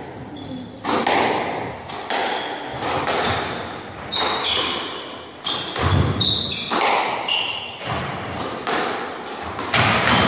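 Squash rally: the ball is struck by rackets and smacks against the court walls about once a second, each hit echoing around the court. Between hits come short high squeaks of court shoes on the wooden floor.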